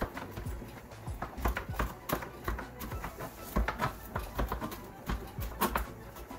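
Kitchen knife chopping parsley on a plastic cutting board: quick, uneven knocks of the blade against the board, a few each second.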